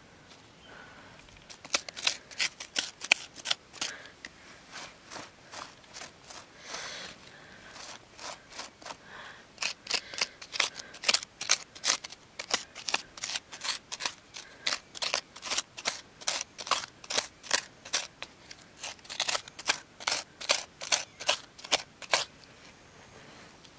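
Rapid, irregular run of sharp clicks and scrapes, several a second, starting about two seconds in, thinning out for a few seconds, then coming thick and fast again.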